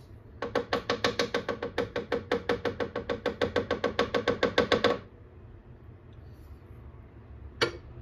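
A utensil beating rapidly against a cooking pot, about eight ringing strokes a second for about four and a half seconds and growing louder, then a single clink near the end.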